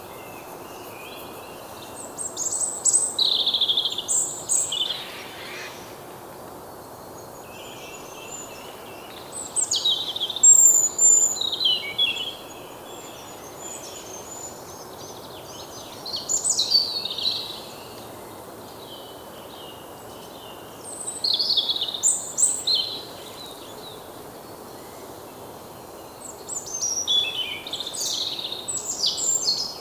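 Bird song: a songbird sings five separate phrases of quick, high chirping notes, each lasting a couple of seconds, with pauses of several seconds between them. Under the song runs a steady outdoor background hiss.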